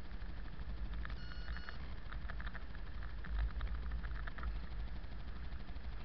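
Steady low rumble of a car's engine and tyres, heard from inside the cabin through a dashcam's microphone while driving over snow. A short electronic beep comes about a second in, followed by a run of light clicks.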